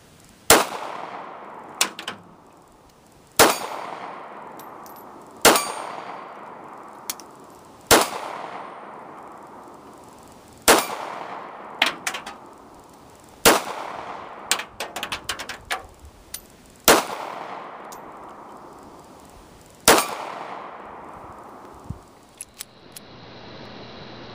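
Kel-Tec P3AT .380 pocket pistol fired eight times in slow fire, a shot every two to three seconds, each shot trailing a long echo. Lighter metallic clinks fall between some of the shots.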